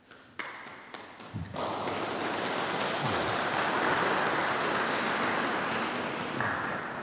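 A few taps, then the congregation applauding from about a second and a half in, fading out near the end.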